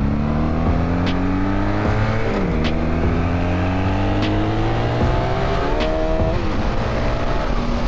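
Honda Magna V4 motorcycle engine pulling under acceleration, its pitch climbing steadily, then dropping at an upshift about two seconds in and climbing again before another shift about six seconds in, with wind rush over the ride.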